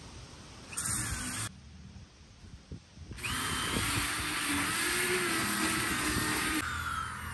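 Hand-held electric power tool, likely a sander, running in two bursts: briefly about a second in, then steadily for about three and a half seconds from about three seconds in, its motor pitch wavering slightly under load.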